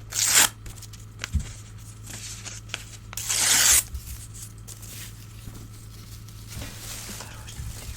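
Old newspaper being torn by hand: two short, loud rips about three seconds apart, a softer tear near the end, and light paper crackles in between.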